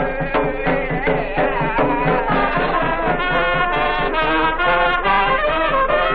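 Small comedy dance band playing a lively tune with a steady beat, trumpet and trombone to the fore, heard through an old film soundtrack with no top end.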